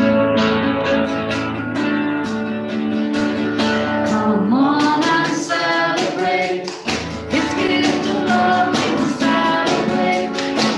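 Small worship band playing a song: strummed guitar, drums and a woman singing lead.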